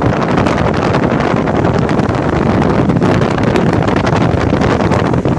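Strong wind buffeting the microphone in loud, gusty flutters over the steady rush of sea waves.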